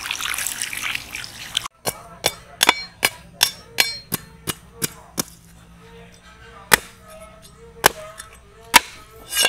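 Water from a hose splashing over fish, cutting off about two seconds in. Then a knife striking against a wooden chopping block as it cuts into a leather jacket fish: quick knocks about three a second, then slower, louder chops about a second apart.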